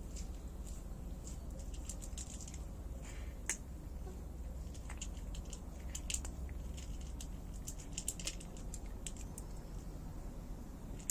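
Irregular light clicks and crackles, a few sharper than the rest, over a steady low rumble.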